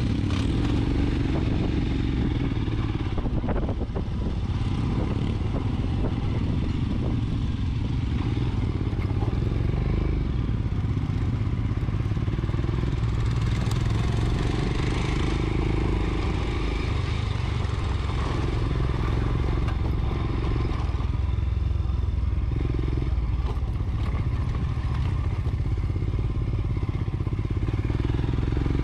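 Royal Enfield Scram 411's single-cylinder engine running steadily as the motorcycle rides across rough grassland, heard close up from the bike, with other motorcycles' engines nearby.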